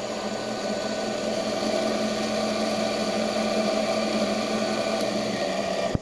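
Washing-machine universal motor running from a 12 V battery at very high speed with its field winding disconnected: a steady whine made of several held tones.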